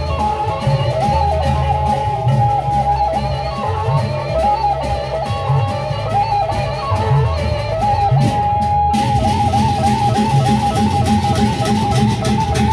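Sasak gendang beleq ensemble playing: a bamboo flute carries an ornamented melody over a steady beat of large double-headed drums. About nine seconds in there is an abrupt cut to a faster, busier flute passage.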